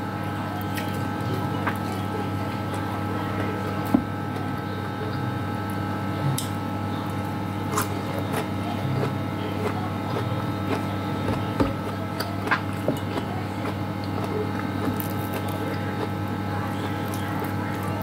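A steady mechanical hum made of several steady tones, from a kitchen appliance. Over it come scattered small clicks and smacks of eating fish and rice by hand and chewing.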